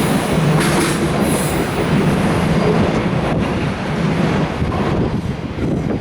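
Koki container wagons of a freight train rolling past at low speed, with wheels knocking over rail joints now and then; the noise eases a little near the end.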